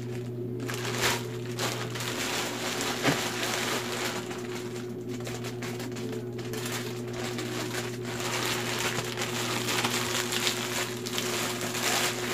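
Plastic courier pouch being cut open with scissors and handled, its plastic rustling and crinkling irregularly, over a steady low hum.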